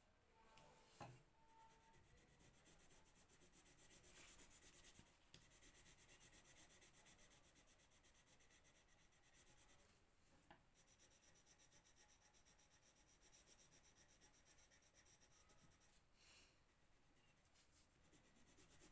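Faint colour pencil scratching on paper in quick back-and-forth shading strokes, with a few brief pauses between stretches of colouring. A single small knock about a second in.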